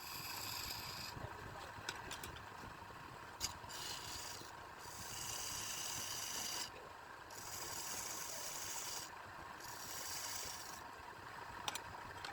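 Wood lathe running with a tool working the spinning wood in repeated passes of a second or two, each pass a bright rasping hiss over the steady hum of the machine. A few sharp clicks come between passes.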